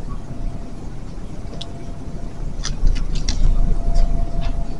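Supermarket background with the low rumble of a handheld phone being moved and a few light clicks and knocks of items being handled. A faint steady hum comes and goes.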